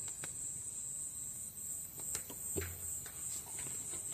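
Crickets chirring in a steady, high-pitched drone, with a few scattered faint clicks.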